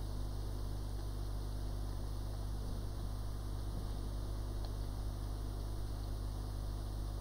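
Steady mains hum with an even hiss underneath, without change; no distinct tool or handling sounds stand out.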